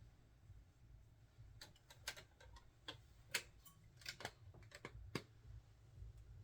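Faint, scattered sharp clicks and taps of small items being handled, about a dozen over a few seconds, over a low steady room hum.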